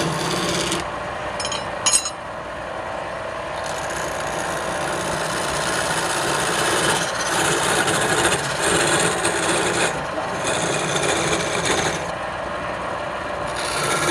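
Woodturning tool scraping against wood spinning on a lathe, in uneven stretches, with a sharp click about two seconds in.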